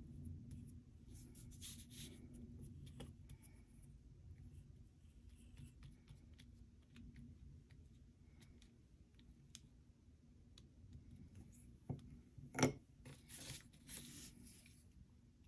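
Faint scratching of a flat brush spreading glue over cardstock, over a low steady hum. About twelve seconds in come two sharp knocks, the loudest sounds, followed by a light rustle of a board strip being handled on paper.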